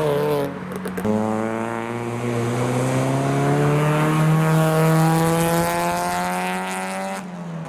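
A car engine holds steady revs for several seconds, its pitch creeping slowly upward, then drops away near the end. Right at the start another engine falls in pitch as it passes.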